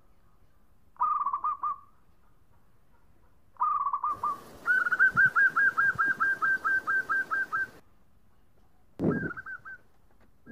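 Zebra dove (perkutut) cooing in quick staccato phrases: a short burst about a second in and another before the middle, then a long run of about fourteen rapid, evenly spaced coos over some three seconds with a hiss behind it, and a short phrase near the end.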